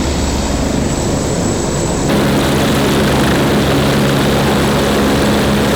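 Turbine helicopter running: a steady engine drone together with its rotor. The sound shifts abruptly about two seconds in and then holds steady again.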